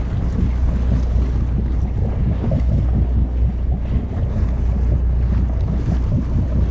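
Steady low rumble of a fishing boat's engine running, mixed with wind buffeting the microphone.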